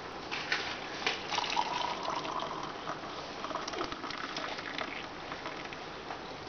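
Hot water pouring in a stream from an electric kettle into a ceramic mug, splashing as the mug fills; the stream thins toward the end.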